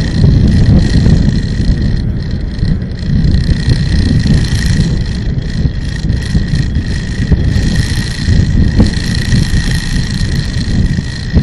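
A vehicle driving along a road, heard from on board: a loud, steady low rumble of engine and road noise with wind buffeting the microphone, and a steady high whine underneath.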